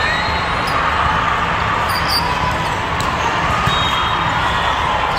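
Steady din of a large hall full of volleyball courts: a mix of crowd chatter and volleyballs being hit during play.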